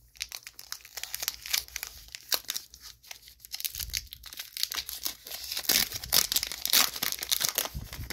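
Foil booster-pack wrapper crinkling while trading cards are handled, a dense crackle that grows louder and busier from about five seconds in.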